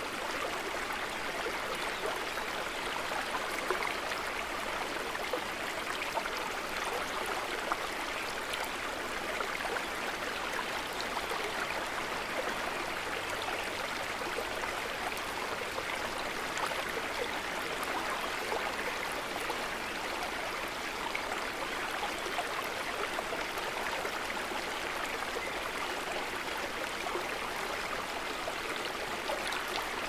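Mountain river flowing, a steady, even rush of water.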